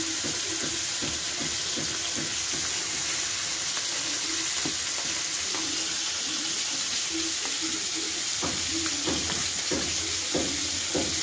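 Pumpkin leaves, red lentils and fish simmering in a wide pan with a steady sizzling hiss. A wooden spatula stirs and scrapes through them in the last few seconds.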